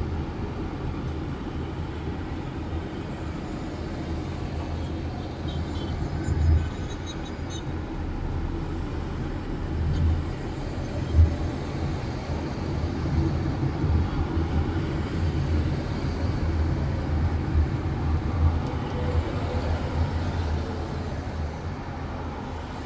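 Road traffic noise: cars driving, a steady low rumble with a few brief louder swells.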